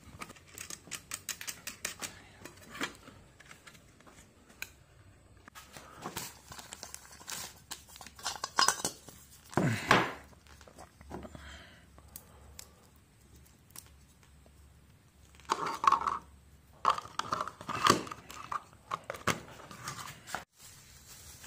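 Camping gear being packed up by hand: rustling and crinkling of bags and plastic with scattered knocks and clinks, louder handling bursts around ten seconds in and twice near the end.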